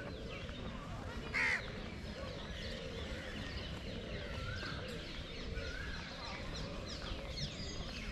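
Many birds chirping at once, short calls overlapping, with one louder harsh call about a second and a half in, over a low steady rumble.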